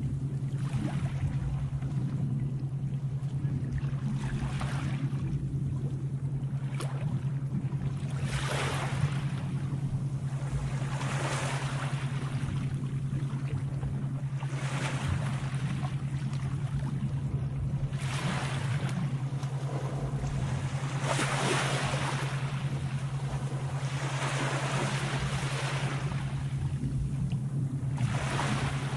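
Sea waves washing in, a hiss that swells and fades about every three to four seconds, over a steady low drone.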